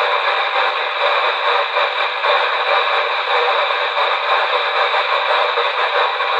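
CB radio receiver static: a steady, loud hiss of an open channel coming through the radio's narrow audio band, with no clear voice.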